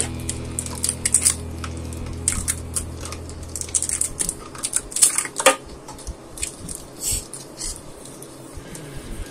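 Foil booster-card packs crinkling and rustling as they are handled and fanned out in the hands, with a sharper crackle about five seconds in.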